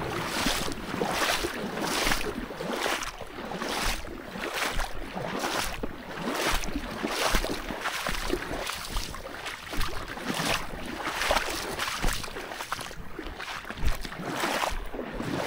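Walking footsteps, a swishing step about every two-thirds of a second, keeping an even pace.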